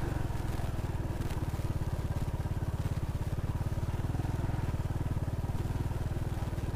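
Honda Pop 110i's small single-cylinder four-stroke engine running steadily at even revs while the bike is ridden through mud.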